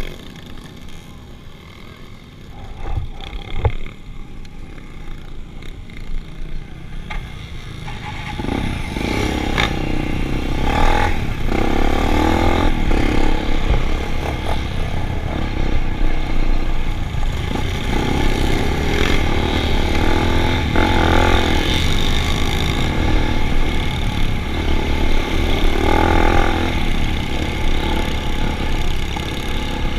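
Vehicle engines running, with some revving; the sound is quieter at first and swells to a steady, louder low rumble about eight seconds in.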